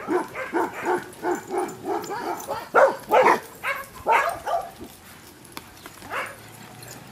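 Dogs barking and yapping in rough play, quick barks several a second for the first four seconds or so, then a single bark about six seconds in.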